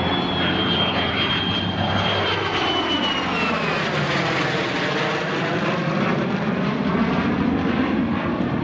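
F-35 Lightning II jet and P-51 Mustang flying past together in formation, with steady engine noise throughout. A high whine falls in pitch over the first few seconds as they pass overhead.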